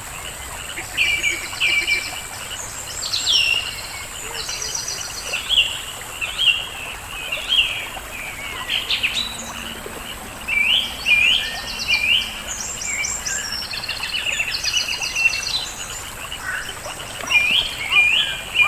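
Small songbirds singing: many short chirps, quick pitch slides and rapid buzzy trills, overlapping one another.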